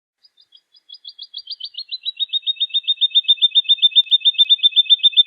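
Woodlark singing one song phrase: a fast run of repeated liquid notes, about seven a second, that starts faint, grows louder and slides slightly lower in pitch.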